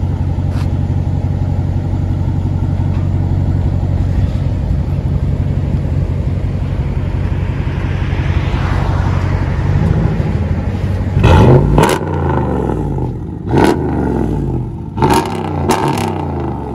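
Ram 1500's 5.7 L HEMI V8 through a muffler-delete exhaust, idling steadily. In the second half it is revved in about four quick blips, each rising sharply and falling back.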